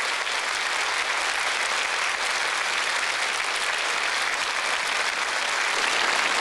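A large audience applauding steadily, a dense even sound of many hands clapping at the end of a song.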